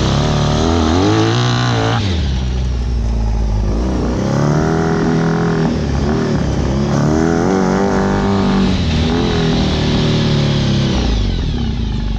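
Honda VF1000 V4 motorcycle engine driving a homemade dune buggy, heard from the driver's seat. Its revs climb and fall back about four times. The owner says it struggles and bogs down accelerating the heavy buggy on gearing that is still too tall.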